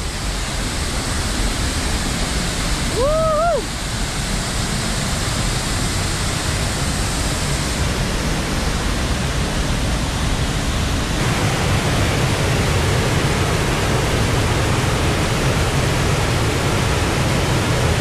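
Waterfall pouring over a concrete dam spillway: a steady, loud rush of falling water that grows heavier and deeper after about eleven seconds.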